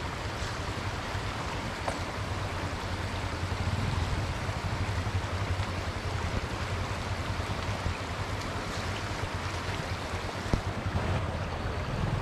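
Shallow stream running over rocks, with a steady low rumble underneath.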